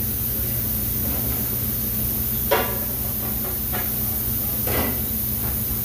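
Steady machine hum with an even hiss, like fans or ventilation running, with a few short faint voice-like sounds in the middle.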